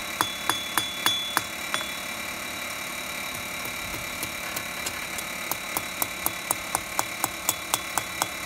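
Hand hammer striking a thin steel bar on an anvil face: light, ringing blows at about four a second. The blows come in a quick run, thin out for a few seconds in the middle, then pick up again in a steady run. A steady hum lies underneath.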